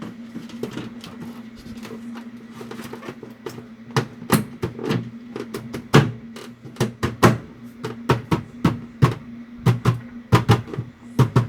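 Plastic interior panels of a refrigerator being handled and fitted back into place: irregular clicks and knocks, thicker from about four seconds in, over a steady low hum.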